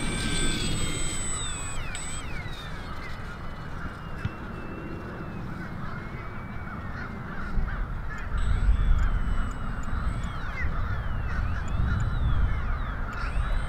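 Small electric motor and propeller of an E-Flite UMX Turbo Timber Evolution RC plane whining in flight, its pitch sliding up and down as it passes and the throttle changes. A low wind rumble on the microphone grows from about halfway.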